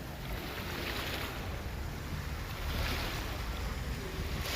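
Sea water washing and surging in swells that rise and fall every second or two over a steady low rumble, with wind on the microphone.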